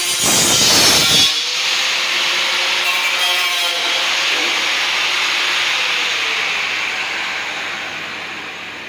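Handheld angle grinder cutting a round hole in a gypsum ceiling tile. A harsh grinding burst in the first second or so gives way to a steady grinding run that slowly fades near the end.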